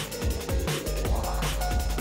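Electronic background music with a fast, steady drum beat and a deep bass line.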